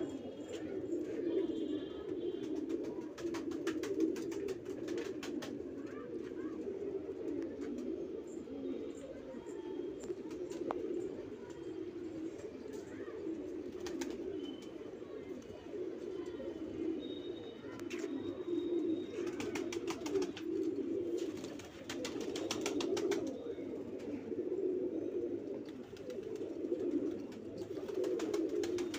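A flock of domestic Banarasi pigeons cooing continuously, many birds overlapping in a low, steady chorus. Bursts of rapid clicking come in twice, a few seconds in and again about two-thirds of the way through.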